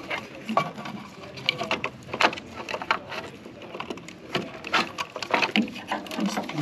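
Gloved hand handling wiring at a refrigerator condenser fan relay, pulling push-on wire connectors off its terminals: irregular small clicks, taps and rustles of wires and plastic.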